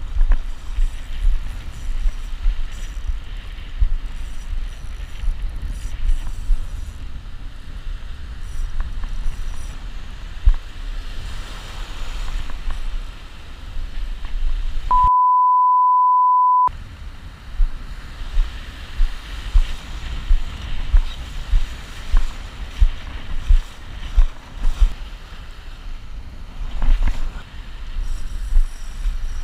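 Wind buffeting an action camera's microphone over breaking surf and water washing around. A little past halfway, all other sound drops out for a steady beep lasting about a second and a half.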